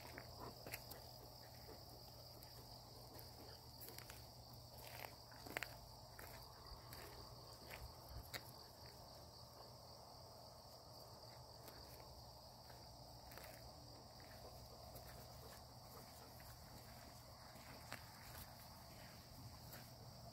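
Faint, steady, high-pitched chirring of insects in the fields, with a few soft footsteps and small ticks on a dirt path.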